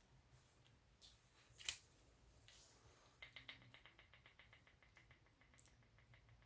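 Adjustable spring hand grip strengthener set to 46 kg being squeezed: a few faint clicks, one sharper click, then a quick even run of faint ticks, several a second.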